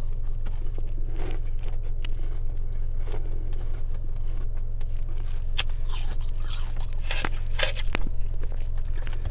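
Frost being bitten and chewed, with crisp crunches that come thicker in the second half. A steady low hum runs underneath inside the car.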